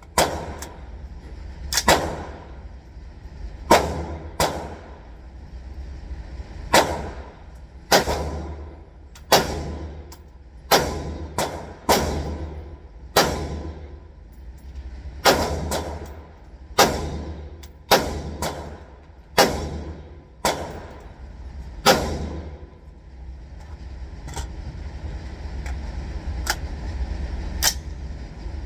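AR-15 rifle in 5.56 fired semi-automatically, about twenty single shots at an irregular pace of roughly one a second, each with a short echoing tail. After a pause, two fainter shots come near the end.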